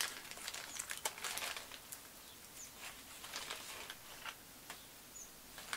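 Clear plastic parts bag holding replacement drone propellers crinkling and rustling as it is handled: a quick run of crackles in the first second or so, then scattered small rustles.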